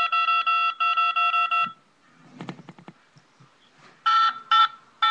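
Phone keypad tones from buttons being pressed: two long beeps in the first second and a half, a few faint clicks, then three short beeps near the end.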